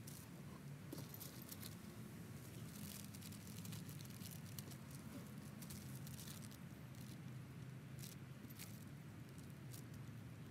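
Faint scattered clicks and crinkles of hands handling broken china shards on a plastic sheet, coming in small clusters, over a steady low hum.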